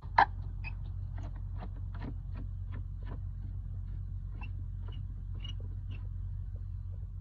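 Screwdriver turning a worm-drive hose clamp on a rubber air-intake hose: small clicks and scrapes about two or three a second, after a sharp click at the start, over a steady low hum.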